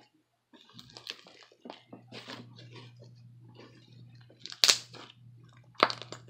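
Crunchy slime mixed with foam beads being squeezed and poked by hand close to the microphone, giving an irregular run of small crackles and pops, with two louder sharp pops about two-thirds of the way in and near the end. A faint steady low hum runs underneath from about a second in.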